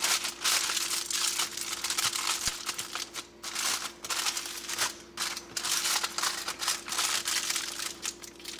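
Aluminium foil crinkling as hands fold and crimp the edges of a foil cooking packet, in irregular bursts with short pauses.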